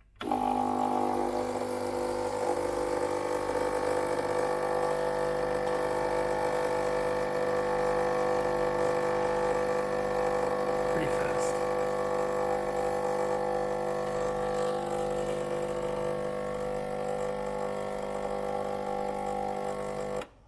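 Gaggia Viva Deluxe espresso machine's vibratory pump buzzing steadily as it pushes water through the portafilter to pull a shot. It switches on just after the start and cuts off suddenly near the end.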